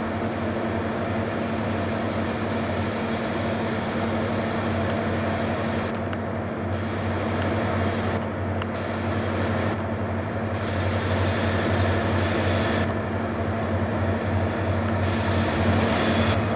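A lashup of diesel-electric freight locomotives hauling a 50-car pipe train, their engines working hard with a steady low drone that grows louder as they approach. A thin high squeal from the wheels on the curve joins in about ten seconds in.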